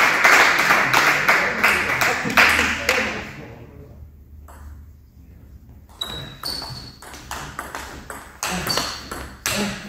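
Table tennis rally: the plastic ball clicking sharply off the table and the players' bats, two to three hits a second, some with a brief high ping. It starts about six seconds in, after a hush; before that the hall is noisy with voices.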